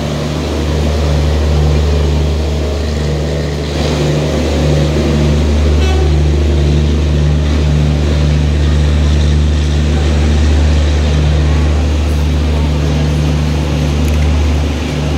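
Tejas Rajdhani Express train rolling slowly along the platform as it is brought in, with a steady low mechanical drone.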